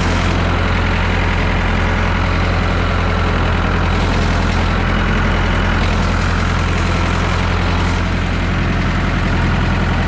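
Engine of a 1969 Massey Ferguson 3165 backhoe tractor running steadily at an even, loud pitch.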